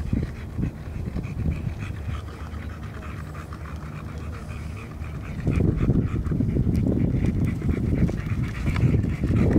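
Dogs panting hard after a steep climb, the panting becoming louder about five and a half seconds in.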